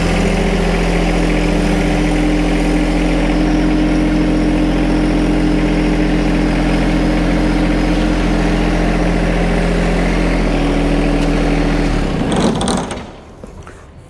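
John Deere 2025R compact tractor's three-cylinder diesel engine running steadily at slightly raised revs as the tractor backs over the mower deck. The engine note drops about ten and a half seconds in, and the engine stops near the end.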